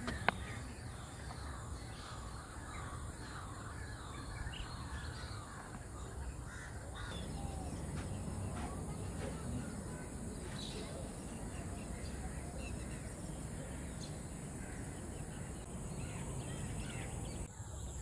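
A chorus of wetland birds calling, with many short overlapping calls, over a low steady rumble. A single sharp click comes just after the start.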